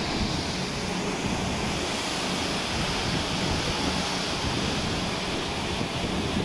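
Rough, storm-whipped sea: a steady rush of waves breaking and white water churning along a cruise ship's hull, with strong wind buffeting the microphone.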